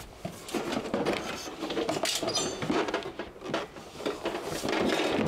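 Handling of a disassembled air fryer: a busy run of small clicks, knocks and scraping as its plastic and metal parts are moved and fitted.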